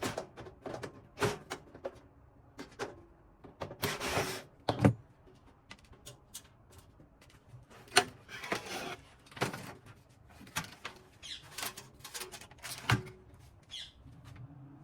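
Hands working on a PC case: irregular clicks and knocks of parts being handled, with a few short scraping rubs. The sharpest knocks come about five and eight seconds in.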